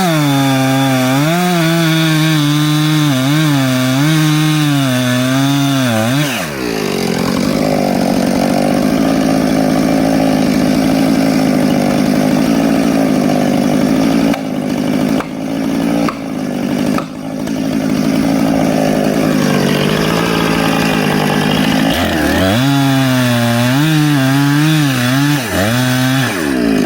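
Two-stroke chainsaw revving high, then dropping in pitch under load as it cuts into a log for about fifteen seconds, with a few brief dips partway through. It returns to free revving near the end.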